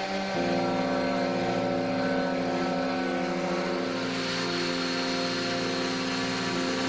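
Electric random orbit sander running steadily while sanding the handle of a wooden paddle: a constant motor whir over a hiss of sandpaper on wood.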